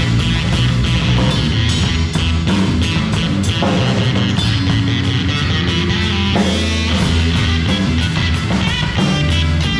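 Rock band playing live: distorted electric guitar, bass guitar and a drum kit, with steady drum hits under sustained guitar and bass.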